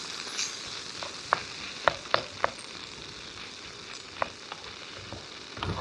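Potatoes and onions frying in oil in a pan: a steady sizzle with a few sharp clicks scattered through it.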